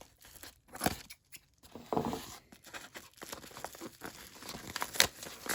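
Package wrapping being torn open by hand: a few sharp rips, then steady crinkling and rustling of the packaging.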